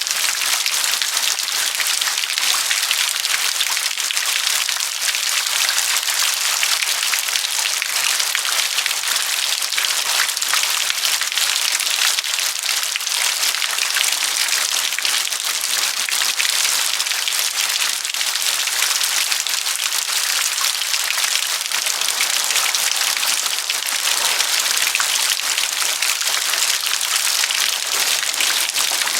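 Steady rain, a dense patter of many drops with a hiss that changes little throughout.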